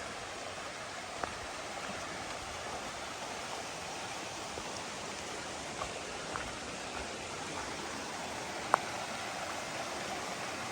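Mountain creek rushing steadily over rocks, an even water hiss, with a few faint clicks, the sharpest near the end.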